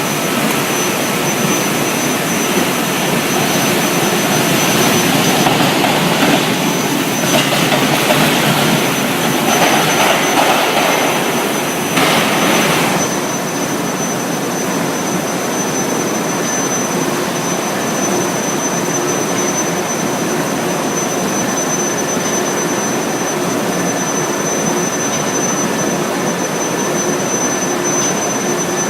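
Induction billet reheating furnace running: loud steady machine noise with a thin, steady high-pitched whine, and louder noisy stretches during the first half.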